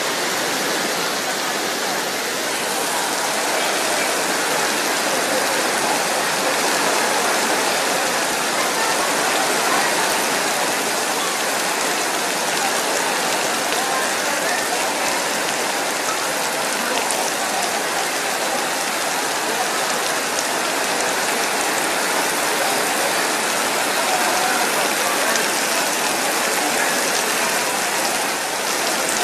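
Heavy rain falling on flooded pavement and pouring off the edge of a tent canopy: a steady, dense hiss of splashing water with no let-up.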